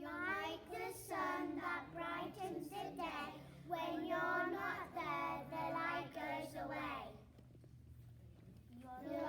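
Young primary-school children singing together, holding long sung notes, for about seven seconds. There is a short pause, and the singing starts again near the end.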